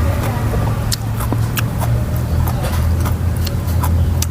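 Close chewing and mouth clicks while eating, over a steady low rumble.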